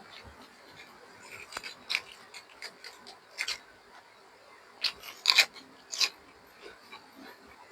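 Close-up eating sounds: irregular sharp crunches and mouth clicks of chewing, with the loudest cluster about five to six seconds in.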